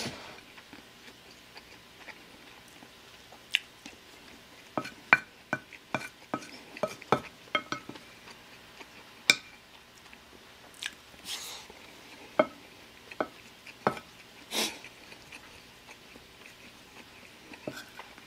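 Wooden spoon tapping and scraping on a ceramic plate as fried rice is scooped up, with soft chewing in between. The sharp clicks come scattered, thickest in a run about five to eight seconds in.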